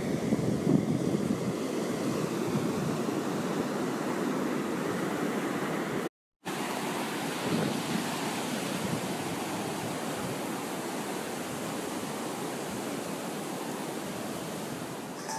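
Ocean surf washing up a sandy beach, a steady rush of waves. It cuts out for a moment about six seconds in.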